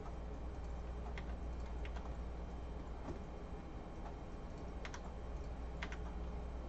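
About five scattered clicks from a computer keyboard and mouse, over a steady low hum.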